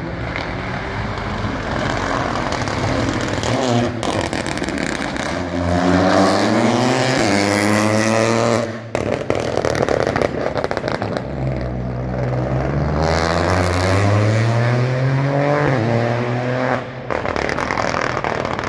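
Peugeot 208 Rally4's turbocharged three-cylinder engine accelerating hard past the spectator, its pitch climbing and dropping back at each upshift. Twice, about halfway through and near the end, the driver lifts and the exhaust crackles and pops on the overrun.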